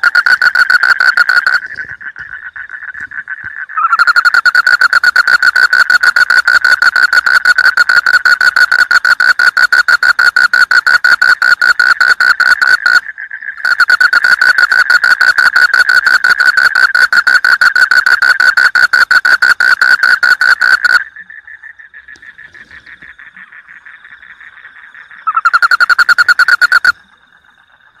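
A frog calling close by in long, loud trills of very rapid pulses at one steady pitch, stopping and starting again a few times. Fainter frogs keep trilling behind it during the gaps.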